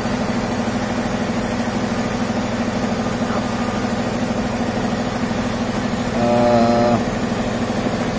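Small engine-driven air compressor running steadily with a fast, even pulse, pumping air to refloat a sunken boat. A short pitched sound, held for under a second, rises over it about six seconds in.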